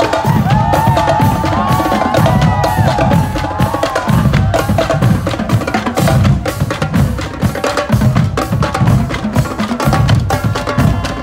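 Marching band drumline playing a cadence: rapid, steady snare drum strokes over bass drum beats.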